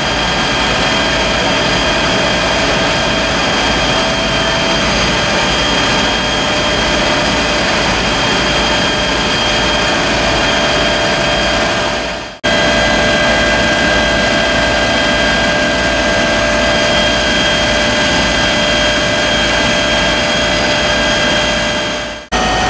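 Fire-truck engines and pumps running hard and steadily: a broad rush of noise with a few steady whining tones on top. The sound fades out and jumps straight back in about halfway through and again near the end.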